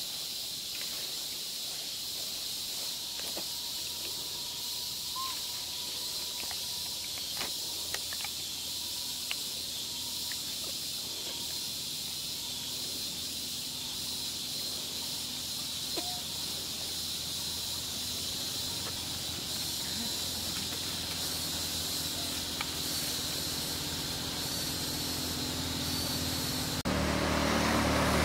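Steady high-pitched insect drone with scattered small clicks and rustles. Toward the end a motor vehicle's low hum builds, turning suddenly louder in the last second or so.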